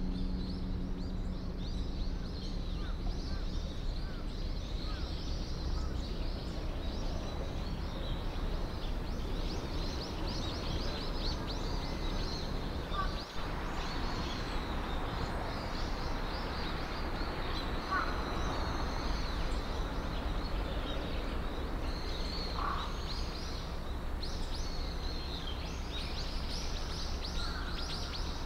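Outdoor ambience: a steady low rumble with many small birds chirping continuously over it, and a few faint brief calls now and then.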